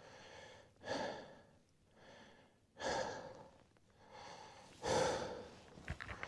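A man breathing heavily, with audible breaths about every two seconds, the loudest about five seconds in.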